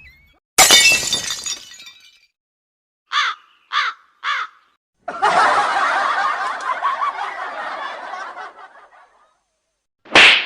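A string of comedy sound effects: first a sudden crash that dies away over about a second and a half, then three short pitched calls in quick succession, then a wavering sound lasting about four seconds, and a short sharp burst near the end.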